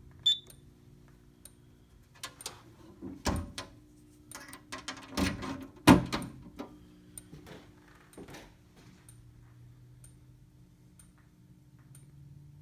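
Simplex 4004 fire alarm control panel being reset: a short high beep, then a series of sharp clicks and knocks, the loudest about six seconds in, over a low steady hum.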